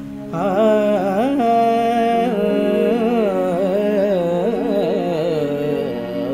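A male Hindustani classical singer's wordless opening alap in raag Bhatiyar, the voice sliding and ornamenting between long held notes over a steady keyboard drone. The voice comes in just after the start.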